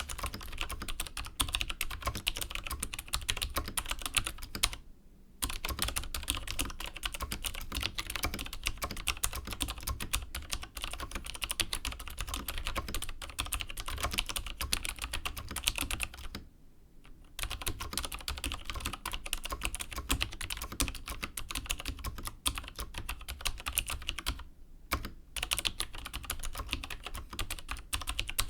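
Continuous typing on a mechanical keyboard with vintage Cherry MX Dark Blue switches, a rapid stream of key clicks and bottom-outs. Typing breaks off briefly about five seconds in, again about halfway through, and once more near the end.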